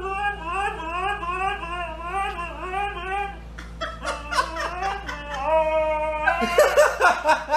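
Husky howling and 'talking': a long warbling call that rises and falls about twice a second, then after a short break steadier held notes that get louder near the end.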